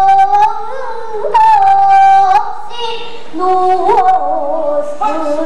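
A girl singing pansori: long held notes that waver and slide between phrases, with a few sharp strokes on the buk barrel drum.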